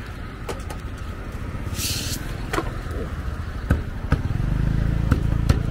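A cleaver or knife chopping grilled chicken on a thick wooden chopping block: about six sharp, irregular knocks. Under it runs a low road-traffic rumble that grows louder after about four seconds, with a short hiss about two seconds in.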